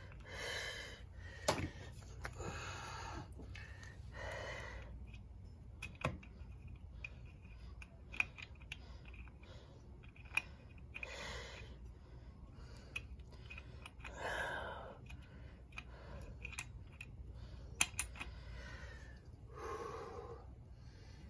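Small sharp metallic clicks and taps, about half a dozen scattered through, from the Honda Helix clutch assembly and its nut as they are worked by hand while the clutch spring is held compressed underfoot. Between them come short breaths every few seconds from the man straining over it.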